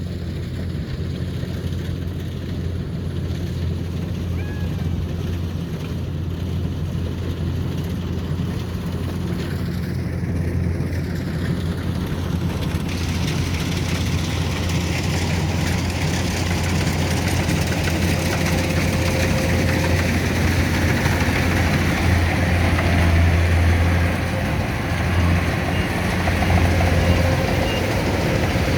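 Rice combine harvester's engine running steadily with a low hum, growing gradually louder, with more clatter and hiss joining about halfway through as the machine works or comes closer.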